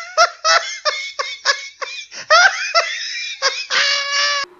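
Laughter sound effect: one person laughing in quick bursts, about four or five a second, ending in a long drawn-out laugh that stops abruptly near the end.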